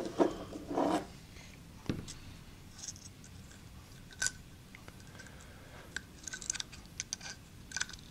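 Handling noise from a disassembled LED bulb being turned in the fingers: a crackly, crunchy rustle in the first second, then scattered small clicks and taps of the plastic housing and driver board.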